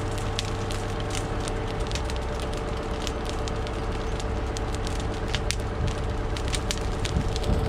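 Green, wet pine brush and a diesel-soaked straw bale burning, with irregular sharp crackles and pops from the fire. Under it runs the steady hum of an idling excavator's diesel engine.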